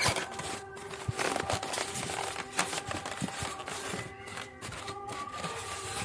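Rustling, scraping and light knocks of cardboard and polystyrene packaging being handled while a boxed electric water heater is unpacked. A faint run of steady held tones plays underneath.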